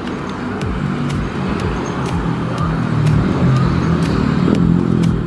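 Steady engine drone with a low hum, swelling a little about three seconds in.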